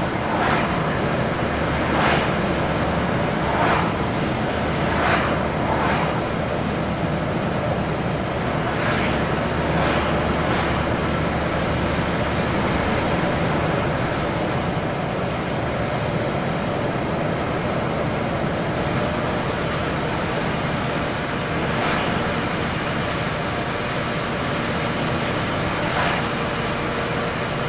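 Steady road and engine noise of a moving vehicle heard from inside, with several short louder whooshes in the first ten seconds and twice more near the end.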